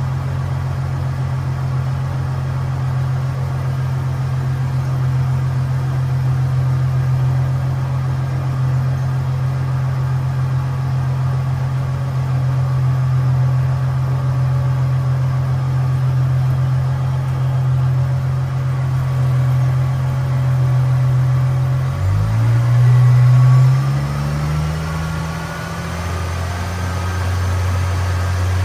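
Holden VY Commodore engine idling steadily; about three-quarters of the way through it revs briefly, then settles back to a slower idle.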